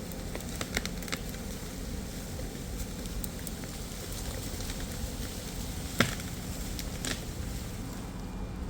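A few sharp knocks, the loudest about six seconds in, over a steady low rumble.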